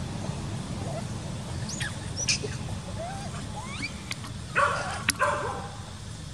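A dog barks twice in quick succession a little past halfway through, a short, sharp pair of barks. Faint high squeaky calls come before them.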